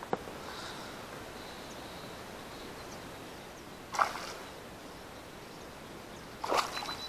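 A hooked fish thrashing at the water's surface beside the boat, with two short splashes about four and six and a half seconds in, the second the louder.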